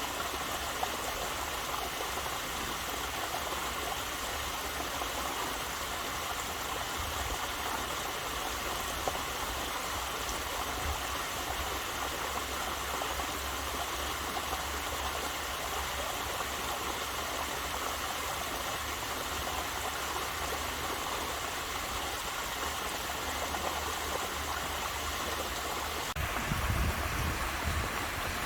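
Waterfall running steadily, a constant wash of falling and splashing water, with a brief low rumble near the end.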